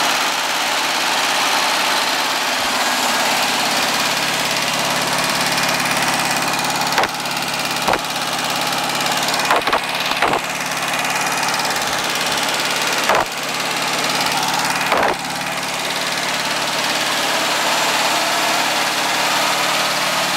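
Air-cooled VW engine running steadily at a fast idle with a baffle in the exhaust, with a little tappet noise that the owner hears more on the 3/4 cylinder side. Around the middle come several short knocks from the camera being moved about on the engine.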